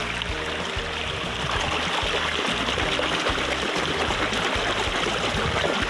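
Flowing stream water rushing steadily, with splashing as a muddy toy car is swished through it by hand to rinse it.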